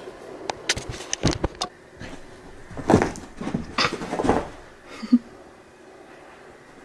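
A dog scrambling and running about on carpet: a string of sharp knocks and scuffles in the first couple of seconds, then a louder stretch of scuffling about three to four seconds in, and one short low sound just after five seconds.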